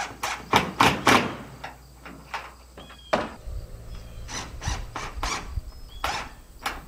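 A screw being driven by hand with a screwdriver to fix a mounting bracket: a run of short squeaking, rasping strokes, quickest and loudest in the first second or so, then spaced out.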